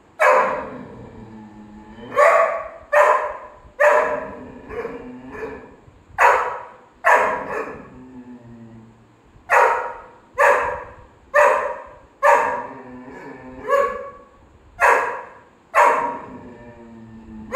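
Golden retriever barking at another dog over chew bones: about fifteen single sharp barks, roughly one a second, with a few short pauses.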